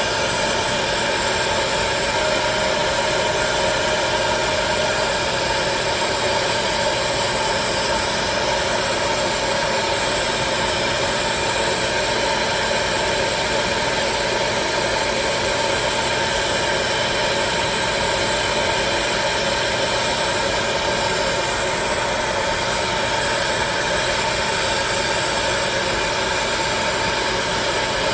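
Hot-air popcorn popper running steadily as a heat blower: a constant motor whine over the rush of blown air.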